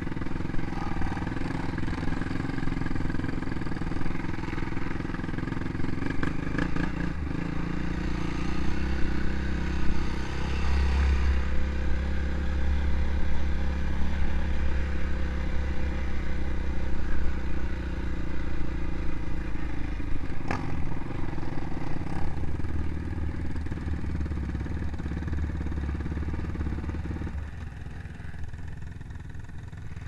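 ATV engine running close to the mic as the quad rides along a rough snowy track, its drone rising and falling with the throttle. Near the end it drops to a quieter idle as the quad comes to a stop.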